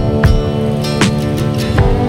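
Background music: strummed guitar chords over a steady drum beat.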